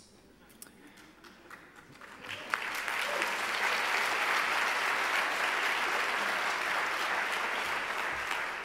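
Audience applauding, starting about two seconds in and holding steady.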